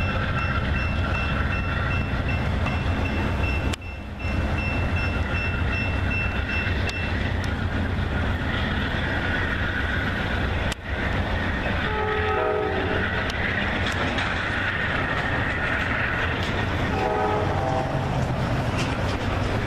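Amtrak passenger train passing on curved track, its diesel locomotive and wheels making a steady rumble, with a thin, steady high-pitched squeal for the first several seconds. A multi-note train horn sounds briefly twice, around the middle and again near the end.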